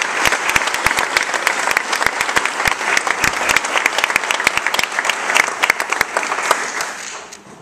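Audience applauding, a dense patter of many hands clapping, which dies away near the end.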